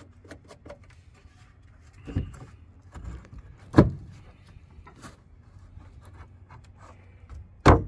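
Scattered wooden knocks and thumps, the sharpest about four seconds in, with light clicks and rubbing between, as a new piece of wood is worked into the camper's side-wall framing.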